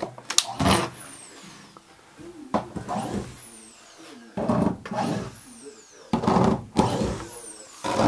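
A handheld corded power tool is run in short bursts against the old mobile home window's frame. Each burst ends in a high whine that falls in pitch, and there are about five in a row.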